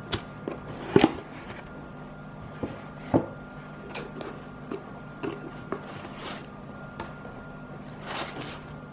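Hands opening and unpacking a cardboard shoe box: sharp knocks and taps from the lid and box, the loudest about a second in and again about three seconds in, with paper and fabric rustling near the end. A steady low hum sits underneath.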